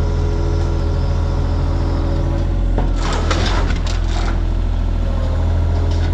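Excavator's diesel engine running steadily under load. A short burst of cracking and scraping comes about three seconds in and lasts about a second.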